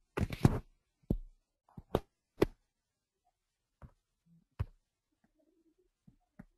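A broken-up conference-call audio line: a short garbled burst at the start, then scattered sharp clicks and knocks with dead silence between them, the sign of a connection fault cutting the presenter's audio.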